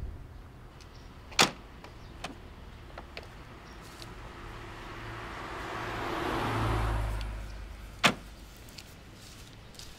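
Two sharp car-door thunks, one about a second and a half in and one near the end, with a few faint clicks. Between them a rush of noise with a low rumble swells and fades, peaking around two-thirds of the way through.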